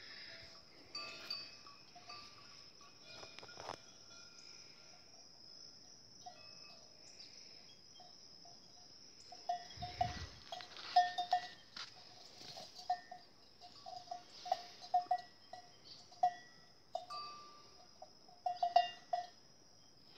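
Small metal bells on walking goats clinking irregularly, a few clinks at a time, busier in the second half. A low handling thump about ten seconds in.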